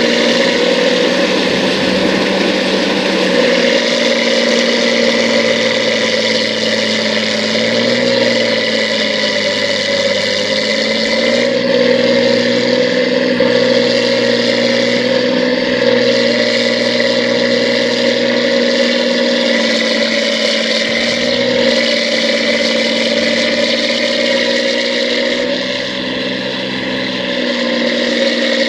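New Holland combine harvester running steadily, its engine and machinery giving a loud, even drone with a steady whine. The pitch sags briefly a few times, around 8 and 10 seconds in and again near the end.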